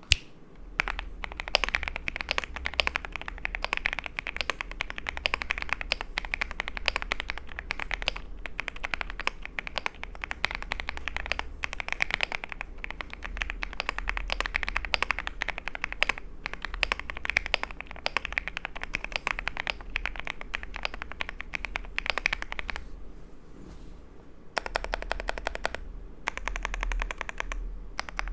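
Fast typing on a CKW 80 mechanical keyboard with lubed FBB F2 linear switches, an FR4 plate, Shenpo PBT keycaps, full foam and a top mount: a dense run of keystrokes, with a short pause about three quarters of the way through.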